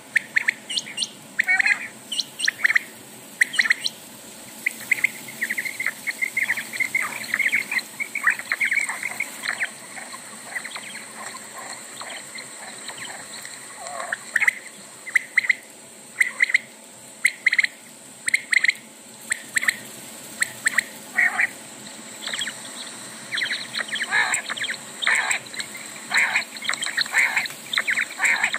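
Bird calls: short chirping, squawking notes repeated irregularly, in quick clusters, over a steady high hiss.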